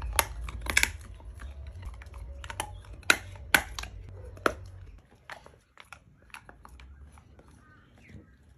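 A chocolate Labrador retriever chewing and crunching food, with several sharp crunches in the first five seconds, then quieter, sparser chewing.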